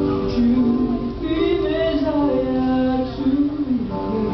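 Vocal quartet singing a song, holding long notes in harmony.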